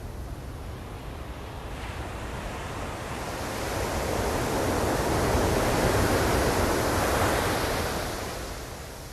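Ocean surf: a wave's rush of water swells, is loudest in the middle, then fades away over a steady low rumble of surf.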